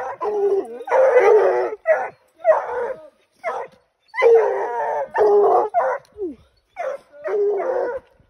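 Coonhounds barking treed: a steady run of loud, pitched barks and a few longer drawn-out bawls, each under about a second. This is the tree bark of hounds holding a raccoon up a tree.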